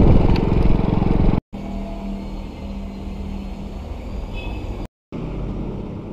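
Small motorcycle engine running while riding, with road noise. It cuts off abruptly about a second and a half in. A quieter stretch with a steady low hum follows, and there is another abrupt cut near the end.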